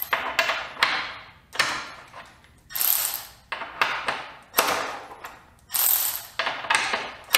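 Milwaukee M12 2457 cordless 3/8-inch ratchet straining in short bursts about once a second against a bolt torqued to 35 ft-lbs; each burst starts sharply and dies away. The ratchet is struggling and fails to break the bolt loose at its claimed 35 ft-lbs.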